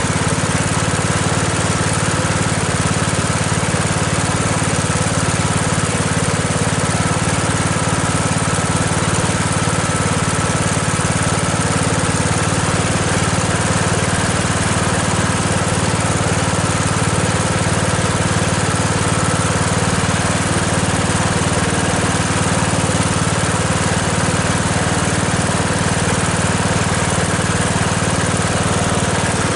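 Briggs & Stratton 15.5 HP riding-lawnmower engine running steadily at an even speed, its valves freshly adjusted back into spec.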